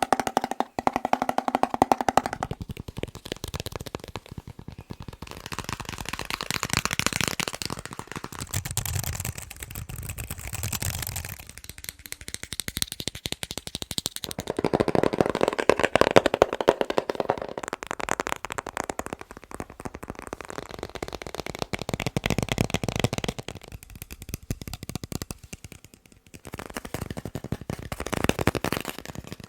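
Fast fingertip and fingernail tapping on one object after another for ASMR, a rapid run of clicks and knocks whose tone changes every few seconds as the tapped surface changes.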